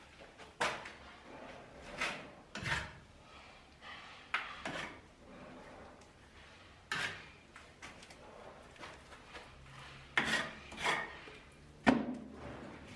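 Irregular scrapes and knocks, about ten in all and unevenly spaced, some short and sharp, some drawn out like a rub. The sharpest and loudest knock comes just before the end.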